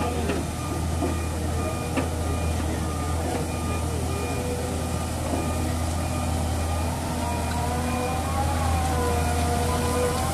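Wheeled excavator's diesel engine running with a steady low drone, with a regular electronic beeping pulsing over it. In the second half a wavering whine rises and falls in pitch as the hydraulics work the arm.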